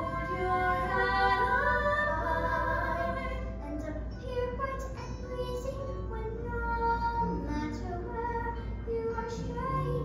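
A song from a stage musical: a young performer singing held, gliding notes over instrumental accompaniment.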